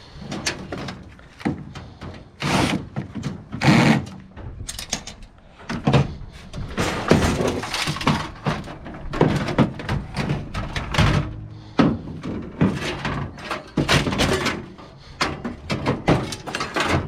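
Irregular knocks, clunks and rattles of metal computer parts being handled as a hard drive is worked loose and pulled out of a PC tower's steel case.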